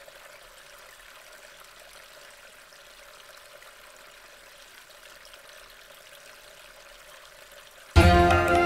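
Faint, steady rush of flowing water. Sitar music starts loudly and abruptly about eight seconds in.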